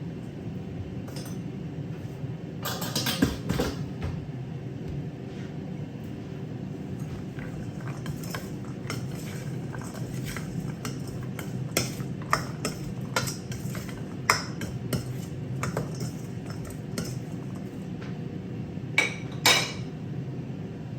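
Dishes and metal utensils clinking and knocking now and then over a steady low hum, with a cluster of louder clatters about three seconds in and another near the end.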